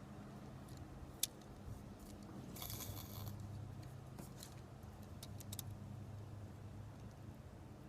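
Faint handling noises over a low steady hum: a sharp click about a second in, a short rattle near the three-second mark, and a few small clicks a couple of seconds later.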